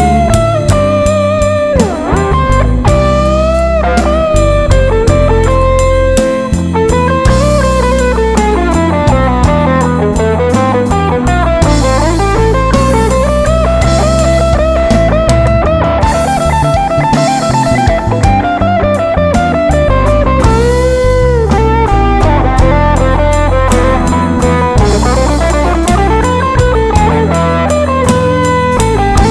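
Band music with no singing: an electric guitar plays a lead melody with bent, sliding notes over bass guitar and drum kit, in a bluesy style.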